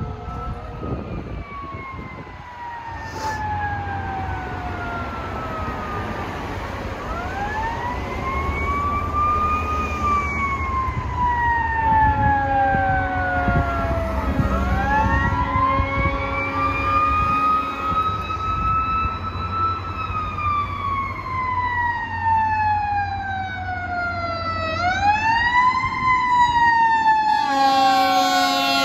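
Fire truck siren wailing in long cycles, each winding up quickly and then slowly falling in pitch, over a low diesel engine rumble that grows louder as the apparatus approaches. Near the end the wails come faster and a blaring air horn joins in.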